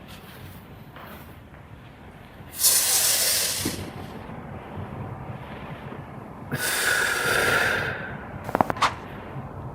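Two loud, forceful breaths out, each about a second and a half long, then a quick run of sharp cracks near the end as a chiropractic adjustment pops the joints.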